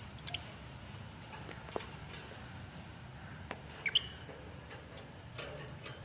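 Lovebirds giving a few scattered short, sharp chirps, the loudest a quick pair about four seconds in, over a low steady hum.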